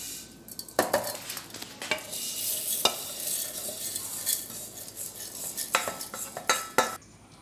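Dry-roasted coriander seeds and whole spices being scraped with a spatula out of a metal kadai and poured into a steel mixer-grinder jar. The seeds make a rustling, rattling pour, broken by several sharp clicks and scrapes of the spatula against the pan.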